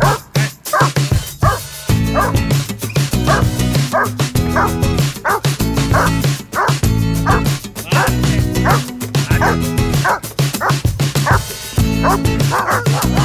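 Irish Setter barking repeatedly, about two barks a second, excited play barks, over background music with a steady low bass line.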